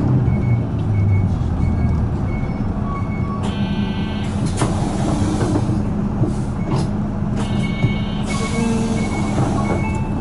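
Isuzu Erga PJ-LV234N1 city bus diesel engine running steadily, heard from inside the passenger cabin. A short electronic beep repeats about twice a second. Two brief buzzing tones sound about four seconds apart.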